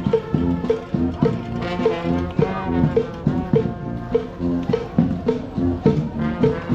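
Street brass band playing: horns holding sustained notes over drums and percussion keeping a steady beat.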